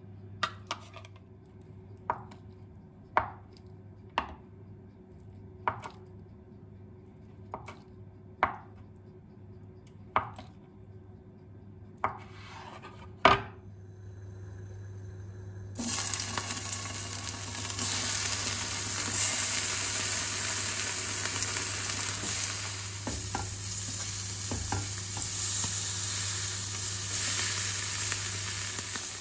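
Slow single knife strokes chopping on a cutting board, about a dozen through the first half. A little past halfway, food in a hot pan starts sizzling suddenly and keeps frying steadily.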